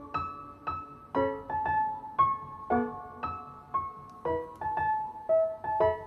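Gentle background piano music: a slow melody of single struck notes, each ringing and fading before the next.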